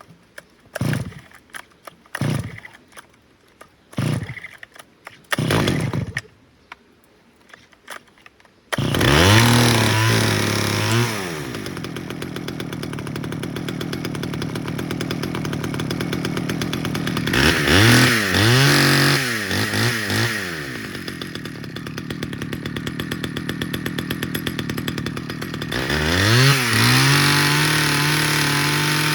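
Stihl 011 AVEQ two-stroke chainsaw cold-started with several short pull-starter cranks that do not catch. On a later pull, about nine seconds in, it fires and runs. It is revved up, settles back to idle, then is revved again twice, held high near the end.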